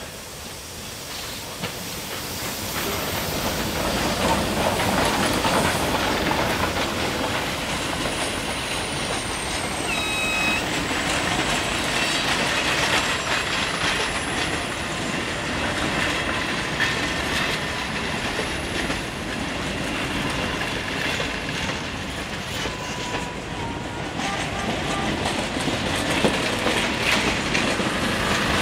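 The 1932 French 141 TD steam tank locomotive (a 2-8-2T) with its train drawing near and passing close by, growing louder over the first few seconds, followed by the steady running noise of its coaches' wheels rolling past on the track.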